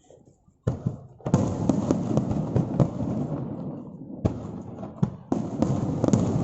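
Aerial fireworks bursting. Near silence gives way to a sharp bang under a second in, then a bigger burst with a long run of crackling, and two more bangs with crackling near the end.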